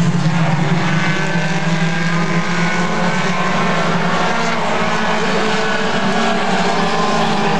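Mini stock race cars' four-cylinder engines running at speed on the track, a loud steady engine sound that holds its pitch.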